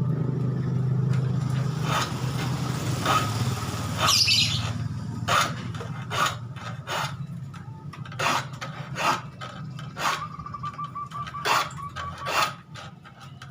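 Hand file rasping across the teeth of a handsaw, sharpening a dull blade: a series of short strokes, roughly one a second.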